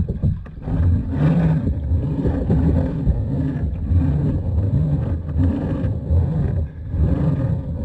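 Wind buffeting the microphone: a loud, uneven low rumble that swells and dips.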